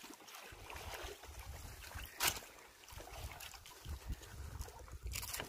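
Wind buffeting the microphone and water lapping against a small wooden boat's hull at sea. A short sharp sound comes about two seconds in, and another near the end.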